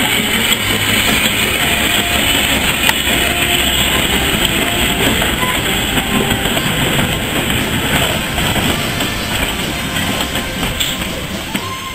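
A train of vintage goods wagons rolling past close by on the rails: steady running noise from the wheels on the track, easing off a little near the end.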